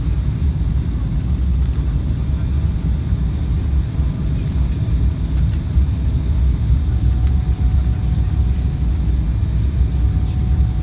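Steady low rumble of a jet airliner heard from inside the cabin during the descent to land: engine and airflow noise through the window seat. A faint steady whine joins about two-thirds of the way in.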